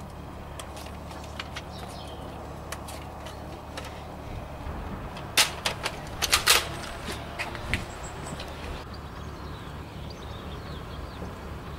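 Plastic clicks and clacks of a Nerf dart blaster being loaded with foam darts and primed, with a cluster of louder sharp clacks about halfway through.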